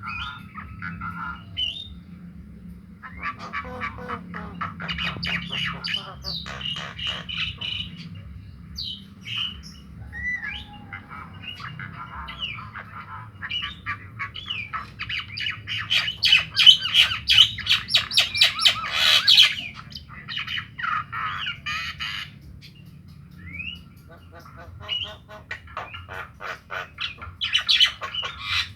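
Javan myna calling: harsh squawks and rapid chattering in repeated bursts with short pauses between them, loudest around the middle.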